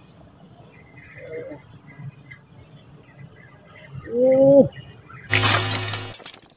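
Steady high-pitched insect drone with a pulsing trill repeating every second or two. A short shout comes about four seconds in. About five seconds in, a sudden loud burst of crackly noise with a low hum cuts across everything, an intro transition effect.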